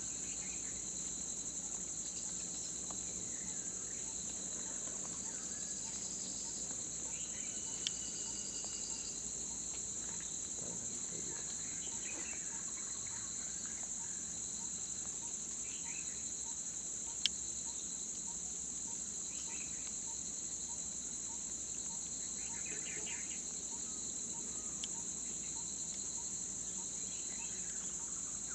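Steady, high-pitched chorus of insects chirring, with a few faint short bird calls and two brief sharp clicks, the second louder, about a third and about two-thirds of the way through.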